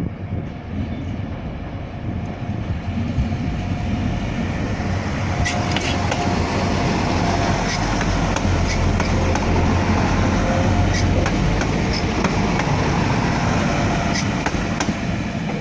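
Multi-carriage passenger train running past close by at low speed: a steady low rumble and hum, with wheels clicking over rail joints now and then.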